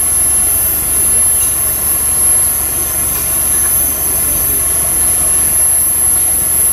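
Cicadas droning in a steady, high-pitched tone that does not break, over a low steady rumble.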